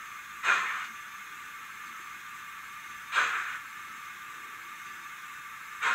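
Zimo sound decoder in a Roco HO-scale BR52 model steam locomotive playing slow steam exhaust chuffs through the model's speaker. There are three puffs about two and a half seconds apart over a steady hiss.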